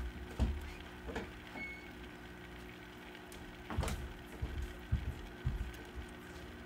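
Steady low hum with a few soft knocks and thumps scattered through it, the strongest about four seconds in.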